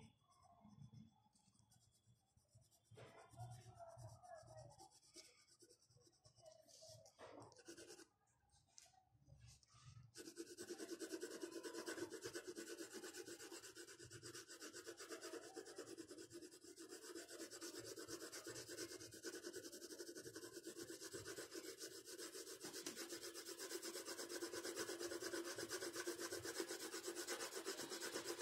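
Pencil scratching on paper while shading a drawing: a few faint, scattered strokes, then from about ten seconds in a continuous fast back-and-forth rasp of quick shading strokes.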